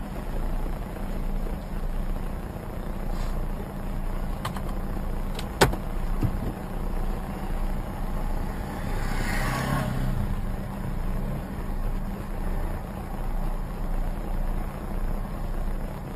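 Steady low hum and rumble of a vehicle, with one sharp click about five and a half seconds in and a brief swell of noise around ten seconds.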